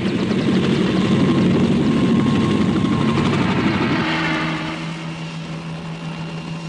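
Cartoon sound effects: a loud, dense rumble for about the first four seconds, then an abrupt switch to the steady drone of helicopters in flight.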